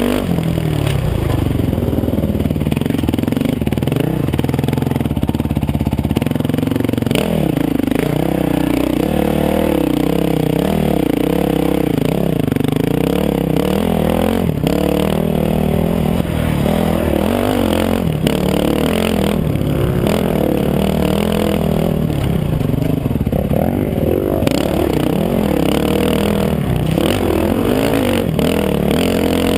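Dirt bike engine running hard, its revs rising and falling constantly as it climbs a rough trail. Scattered knocks and rattles come from the bike going over rocks.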